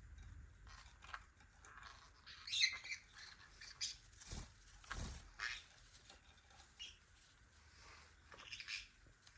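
Green-cheeked conures giving short, scattered chirps, loudest in a quick cluster about two and a half seconds in, with a few light taps and clicks in between.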